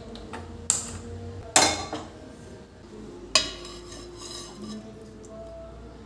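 Steel cookware and utensils clanking: three sharp metallic knocks, the loudest about one and a half seconds in and ringing briefly, over a low steady hum.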